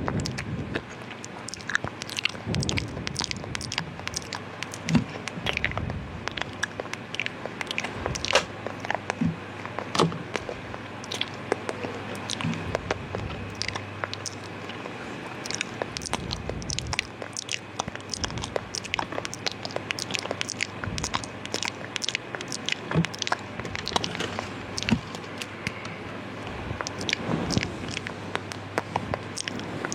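Wet mouth sounds made close to the microphone: rapid, irregular clicks and smacks of lips and tongue.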